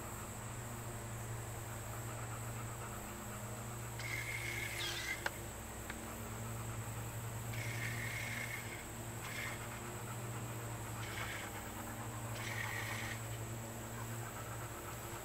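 Steady low hum of a boat motor running slowly, with several short, buzzy, high calls of about a second each over it.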